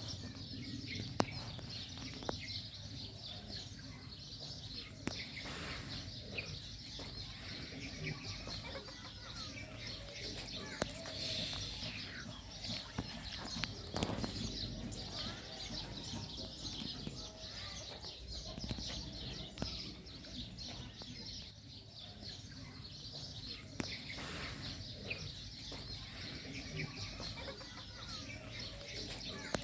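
Farmyard ambience: chickens clucking and other birds calling at intervals over a steady low background hum, with a few sharp clicks scattered through.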